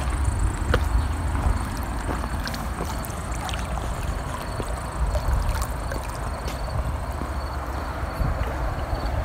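Wind rumbling on the microphone over a steady rush of outdoor noise, with a few small clicks.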